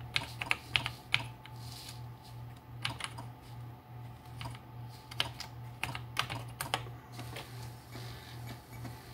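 Typing on an Atari 8-bit computer keyboard: a few quick key clicks in the first second, one about three seconds in, and a run of several between about five and seven seconds, over a steady low hum.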